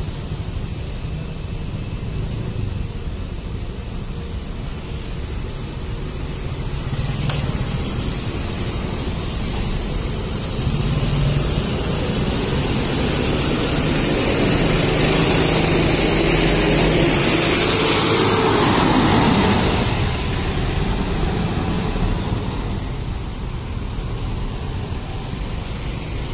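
Intercity coach bus engine running as it pulls out and passes close by. It grows louder over several seconds to a peak about three-quarters of the way through, with a high hiss over the engine, then fades as the bus moves off.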